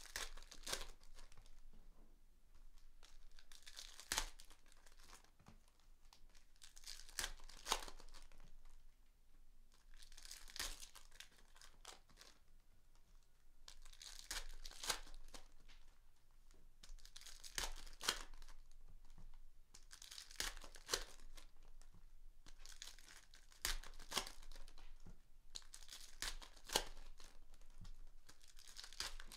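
Trading-card packs being torn open and their plastic wrappers crinkled by hand: short, irregular rips and rustles every couple of seconds.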